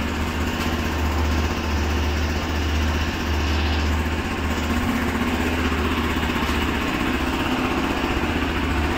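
A steady, low engine-like drone with a constant hiss over it, and cloth rustling as a motorcycle's fabric cover is handled.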